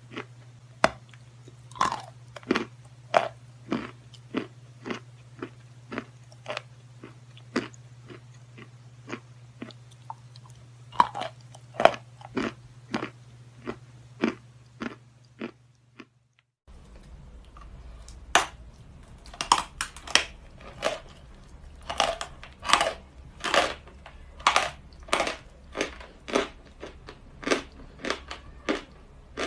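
Close-up crunching as someone bites and chews natural white chalk, the chalk snapping in a steady run of crisp crunches at about two a second. A low hum sits underneath at first, then drops out about halfway through, where there is a short gap before the chewing goes on.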